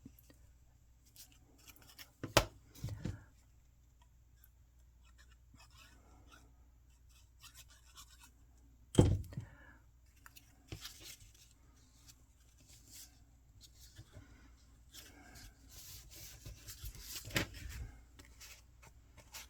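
Cardstock pieces being handled and laid in place: light paper rustles and scrapes throughout, broken by a few sharp taps or knocks on the work surface, the loudest about nine seconds in.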